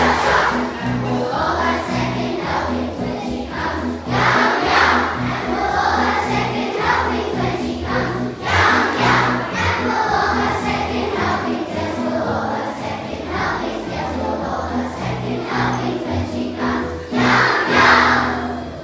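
A group of voices singing together over instrumental accompaniment with a steady bass line; the song ends near the close.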